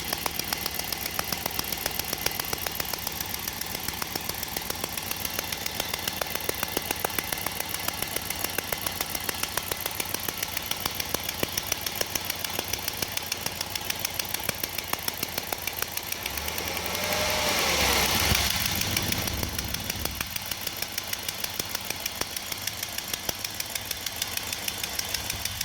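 Chevrolet Express 3500 van engine running with a steady, fast, regular ticking, the weird sound in question. A louder rushing sound swells up and fades away about two-thirds of the way through.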